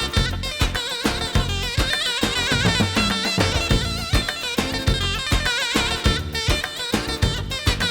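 Turkish folk-style music in a 2/4 rhythm, played on a Yamaha A5000 sampler with sampled zurna and bağlama sounds. A reedy melody full of quick wavering ornaments runs over a steady drum beat.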